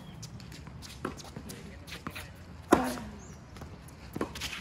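Tennis rally on a hard court. The near player's racket strikes the ball with a loud pop about three seconds in, with a short grunt. Fainter pops of the opponent's shots and the ball bouncing come in between.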